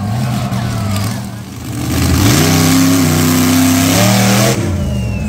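Monster truck engine revving. The note is steady at first and dips briefly about a second and a half in. The revs then climb sharply and hold high, as the truck launches over a dirt mound, before dropping back near the end.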